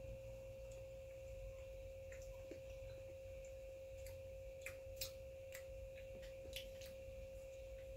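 Quiet room tone: a steady faint tone with a low background rumble, and a few faint clicks in the second half.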